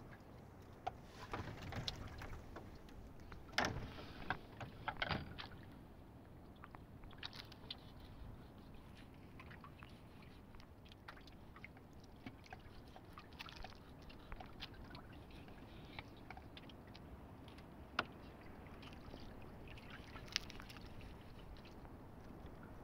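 Knife cutting and scraping a raw fish on a plastic cooler lid: scattered taps, scrapes and clicks, busiest in the first five seconds, with a sharp click now and then after.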